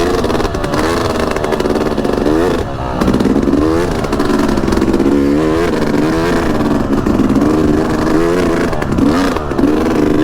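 Yamaha YZ250X single-cylinder two-stroke dirt bike engine revving up and down repeatedly as the throttle is opened and closed, pulling up a trail climb.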